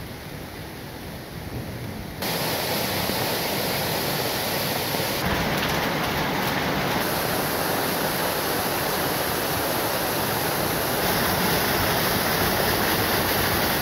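Heavy rain pouring, a dense steady hiss that jumps louder about two seconds in. Near the end, muddy rainwater runoff rushes across the ground.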